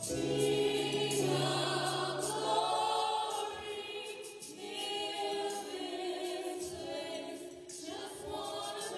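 A small group of women singing a gospel worship song together into microphones.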